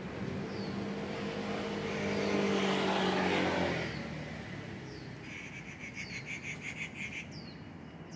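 A vehicle passes: a steady engine hum with tyre noise swells up and fades away over about four seconds. Short falling bird chirps repeat throughout, and a fast pulsing trill of about ten beats a second runs briefly near the end.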